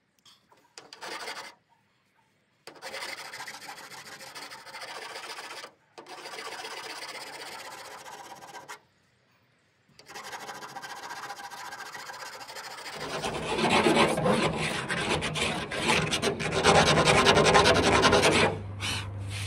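A hand tool scraping the painted steel roof around the edge of a freshly cut flue hole, in spells of rapid strokes with short pauses, getting louder over the last few seconds. A low steady hum comes in about two-thirds of the way through.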